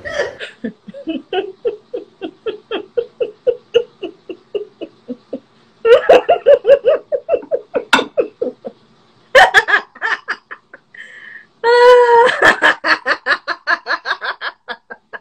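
Hearty laughter: rapid, rhythmic ha-ha pulses in several loud bouts with short breaks between them; the last bout opens with a high held shriek.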